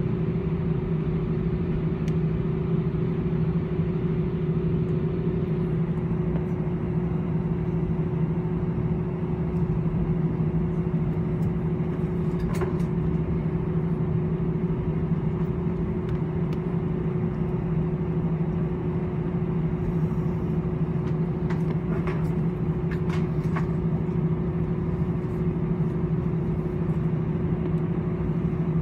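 Steady drone inside the cabin of an Airbus A318-111 taxiing, its CFM56 jet engines at idle: a low, even hum with two held tones. A few faint clicks come around halfway and again near the end.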